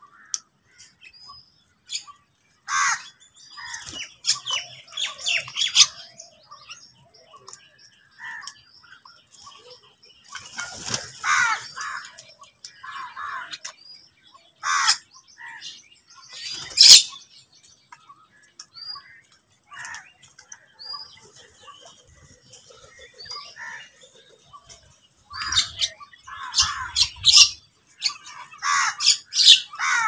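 A flock of house crows and mynas calling in short, harsh bursts at a food bowl, with wing flaps as birds jostle and fly up.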